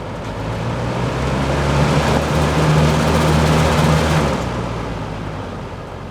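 Vintage 1980s Lasko box fan running: a strong rush of air over a low motor hum, swelling louder over the first few seconds and easing off again after about four seconds.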